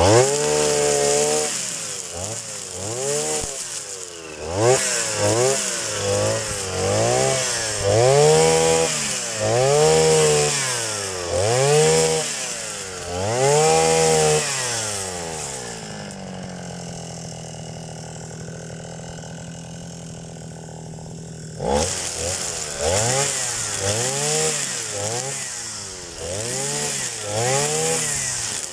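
Petrol brush cutter (motorized grass trimmer) cutting grass and weeds, its engine revved up and let back down about every two seconds. A little past the middle it drops to idle for about five seconds, then revs again.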